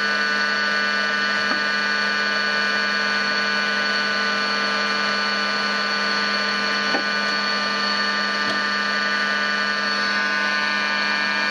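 Tschudin HTG 630 cylindrical grinder running: a steady machine hum and whine made of several fixed tones.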